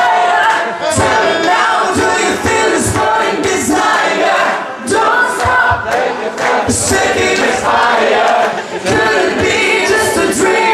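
A woman and a man singing a pop duet live into microphones over a backing track, with the audience singing along in a loud, massed chorus.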